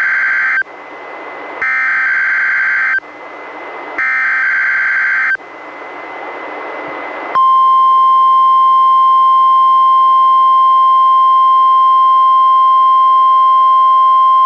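NOAA Weather Radio required weekly test heard through a weather radio receiver: three short bursts of screeching EAS digital header data, each about a second and a half long, with radio hiss between them. About seven seconds in, the steady single-pitched warning alarm tone starts and holds.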